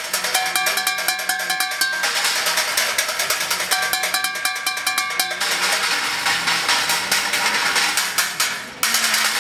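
Fast industrial-techno drumming with sticks on recycled scrap: pots, pans, metal trays and buckets struck in rapid strokes, with stretches of ringing metallic tones. There is a short break near the end before the beat comes back in.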